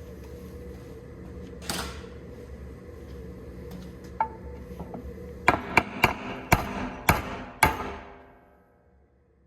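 Hammer striking metal six times in quick succession, each blow ringing briefly, over a steady low machine hum that dies away near the end.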